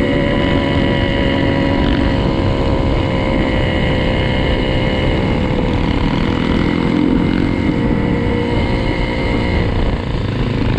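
Trail motorcycle engine running at a steady cruise, with wind rumble on the microphone. The engine note eases slightly about ten seconds in.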